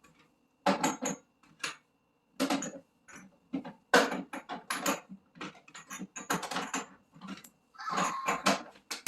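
Items being handled and set into storage containers: a run of clatters, clicks and knocks broken by short pauses.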